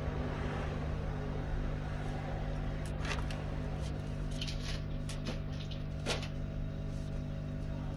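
Steady low hum with a few sharp clicks and taps, about three seconds in, around five seconds and again around six: small tools and parts being handled on a repair bench.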